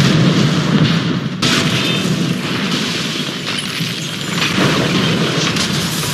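Film sound effects of large explosions: continuous heavy booming blasts, with a fresh blast breaking out about a second and a half in.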